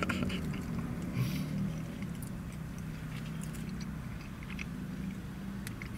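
A person chewing a mouthful of soft, mushy burger with the mouth closed: faint wet mouth sounds over a steady low hum.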